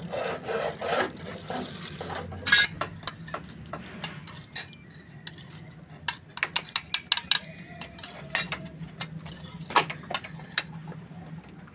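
A metal spoon stirs yogurt into green chili, coriander and mint chutney in a melamine bowl, clinking and scraping against the bowl again and again; the sharpest clink comes about two and a half seconds in. For the first two seconds a plastic bag crinkles as the yogurt is poured from it.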